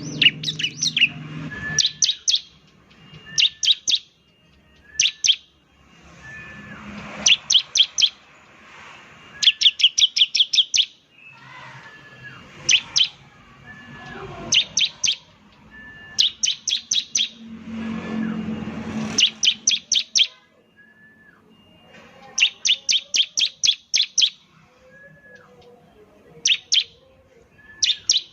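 Bar-winged prinia (ciblek) singing: rapid trains of sharp, high notes, three to eight at a time, repeated every second or two, with short softer call notes between them.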